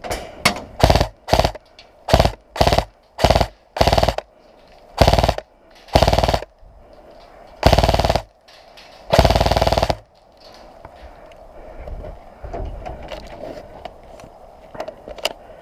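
Airsoft rifles firing in bursts: about eight short bursts in the first four seconds, then four longer strings of rapid fire, the last and longest ending about ten seconds in. After that only faint, scattered distant shots.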